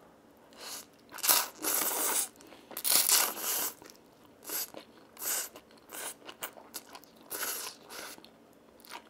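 Close-miked slurping and chewing of Buldak spicy stir-fried ramen noodles, in a series of short noisy bursts, the longest in the first few seconds.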